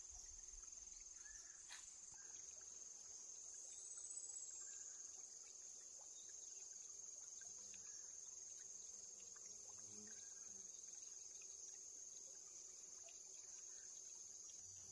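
Faint, steady high-pitched insect chorus, one unbroken shrill tone with a few soft clicks.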